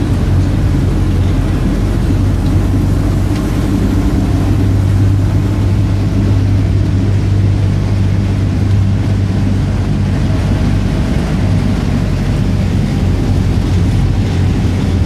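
A vehicle engine running steadily at an even pitch, heard from on board while driving along a town street, with road and traffic noise.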